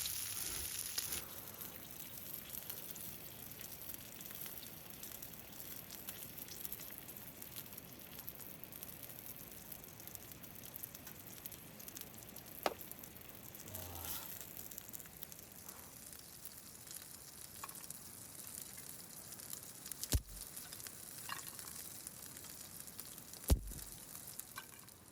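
Meat sizzling steadily on a hot grill, with a few sharp clicks or pops, the loudest near the end.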